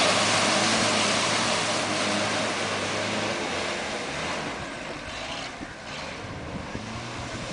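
Off-road 4x4 jeep's engine running hard under load as it churns through mud and up a dirt mound, a steady drone that fades about halfway through as the jeep moves off.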